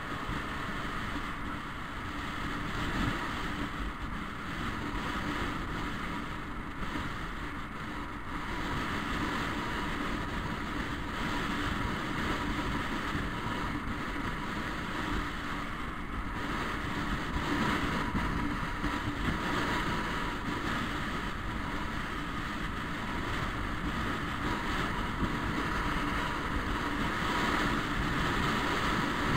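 Scooter riding at road speed: steady wind rush on the microphone over the scooter's engine and road noise.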